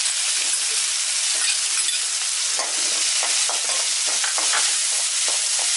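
Hot oil sizzling steadily in a wok as chana dal, mustard seeds and urad dal fry for a tempering, with a spatula stirring and scraping the pan and scattered small crackles throughout.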